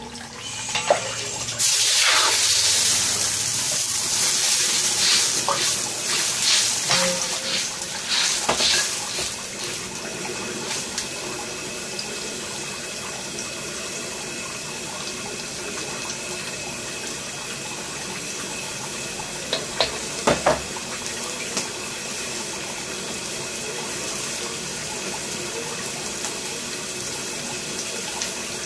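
Water hissing in a hot wok over a gas burner: loud with scattered clanks for the first several seconds, then settling into a steady hiss, with a few knocks about two-thirds of the way through.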